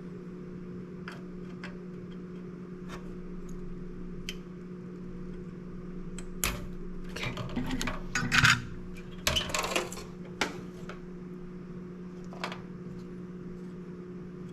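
Scattered light clicks and scraping of hand tools working on a circuit board while a diode is being fitted, busiest in the middle, over a steady low electrical hum.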